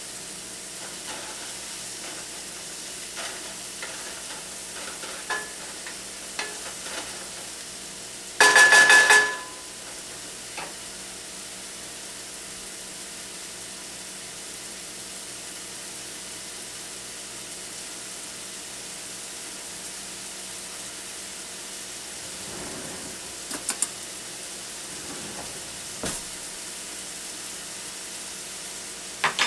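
Sliced mushrooms sizzling steadily in a hot nonstick skillet, with a wooden spatula scraping and stirring through them in the first few seconds. About eight seconds in comes one loud clatter with a ringing tone lasting under a second, and a few light knocks follow near the end.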